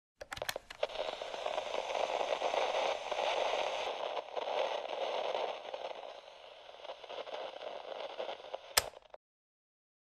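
Crackling, rustling noise with scattered clicks, thinning out over the last few seconds, then one sharp click before it cuts off abruptly.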